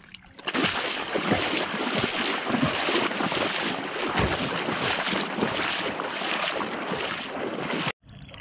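Booted feet splashing quickly through shallow seawater, a dense run of overlapping splashes that cuts off abruptly near the end.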